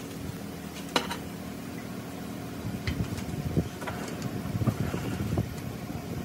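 Steady low hum of workshop machinery with a sharp click about a second in, then irregular low knocks and clunks from a metal gear being handled and shifted in a lathe chuck.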